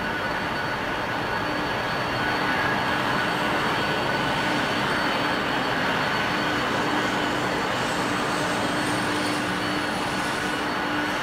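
Twin rear-mounted turbofan engines of an Embraer regional jet running steadily with a jet rumble and whine. Near the end a high whine rises in pitch as the engines spool up.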